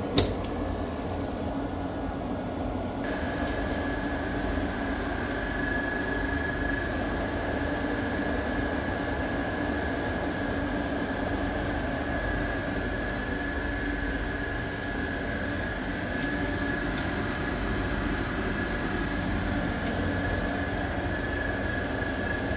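Elevator drive running as the lift travels between floors, heard from its Monarch NICE 1000 new integrated controller cabinet. After a click at the start, a steady high-pitched whine sets in about three seconds in over a low hum and holds steady.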